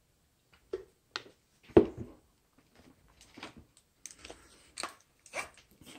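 A beer being handled and drunk from: a few sharp clicks and one louder knock about two seconds in, then a run of short sipping and swallowing sounds.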